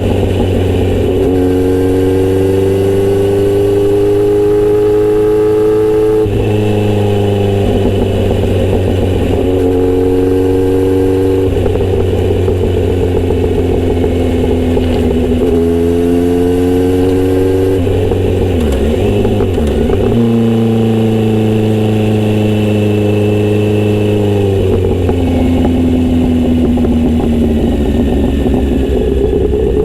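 Kawasaki Z900RS inline-four engine through a Misty Kintaro short-pipe exhaust, running on the move: its note climbs slowly and drops back about every four to five seconds, like a rider working up through the gears.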